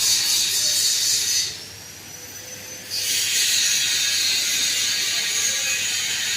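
Panasonic F-560Z2 industrial ceiling fan running with a steady, hissy mechanical rattle. The sound drops away suddenly about a second and a half in and comes back at about three seconds.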